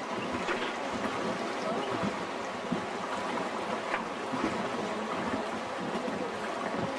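Fast-flowing Dunajec river water rushing and splashing around a wooden raft, a steady noise with small splashes.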